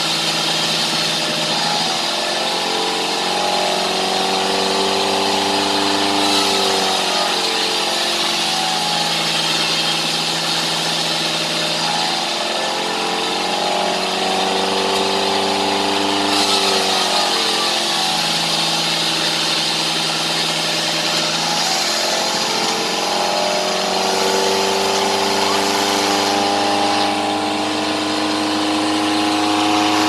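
Homemade band sawmill running at full speed, ripping sengon wood into boards. The drive note is steady and sags and recovers in slow swells about every ten seconds over a hissing cutting noise.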